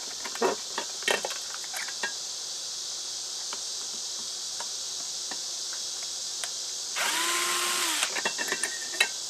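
Cordless screw gun run once for about a second, its motor whine rising, holding and winding back down, with a few light clicks and knocks of tools and fan parts being handled before and after it.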